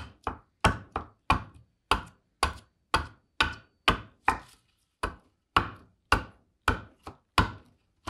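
Bowl adze chopping into a black walnut crotch blank, hollowing out a bowl: a steady run of quick, sharp strikes, about two to three a second, each chip cut ending fast.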